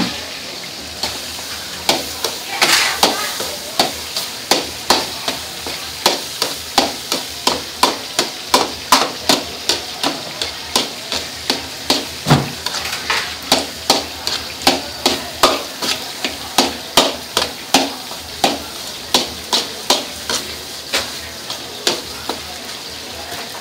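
Metal ladle scraping and knocking against a steel wok as rice and vegetables are stir-fried, about two or three strikes a second over a steady sizzle of frying.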